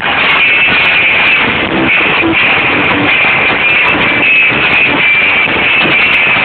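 Live band with electric guitar playing through a stage PA system, heard as a loud, noisy wash on an amateur recording.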